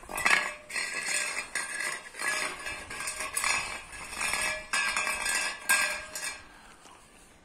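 Pit bull puppy eating from a stainless steel bowl. The bowl clinks and scrapes on the concrete again and again as the puppy pushes it along, and the sound dies away near the end.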